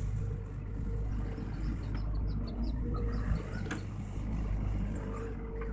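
Sany SY55C mini excavator's diesel engine running steadily while the machine works and swings its boom, with a few sharp clicks.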